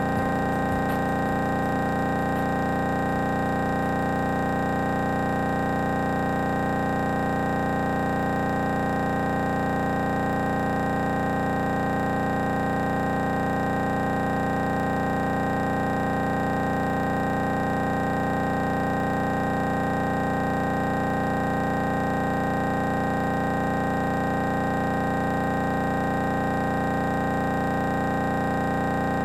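Light aircraft's engine and propeller, a steady drone with an even hum that holds unchanged through the approach and flare.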